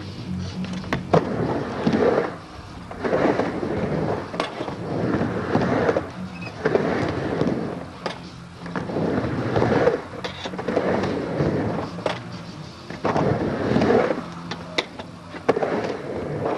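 Skateboard wheels rolling back and forth across a backyard ramp, swelling on each pass about every one and a half to two seconds, with a few sharp clacks.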